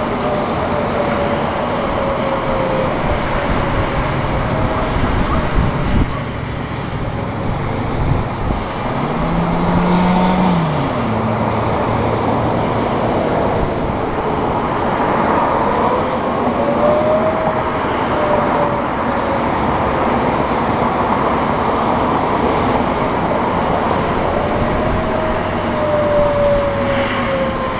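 Steady road traffic noise of passing cars, with a faint outdoor warning siren wail slowly rising and falling underneath it.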